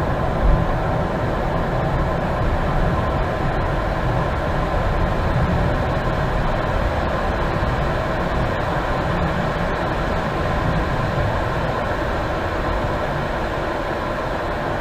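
Business jet taxiing with its jet engines at idle, heard from inside the cockpit: a steady low rumble with a constant hum over it.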